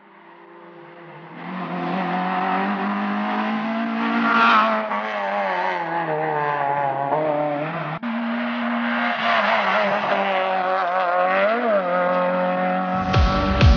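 Rally car engine revving hard as the car drives off along the stage, its pitch rising and falling with throttle and gear changes. It fades in at the start and breaks off briefly about eight seconds in. Near the end, music with a heavy beat starts.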